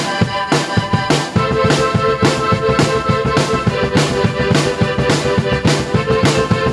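Drum kit and keyboard playing together: a steady beat with regular cymbal hits over held keyboard notes. About a second and a half in, the drumming gets busier and a new sustained chord comes in.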